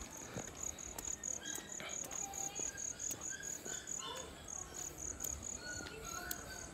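A cricket chirping steadily, a high-pitched pulse repeated about four to five times a second.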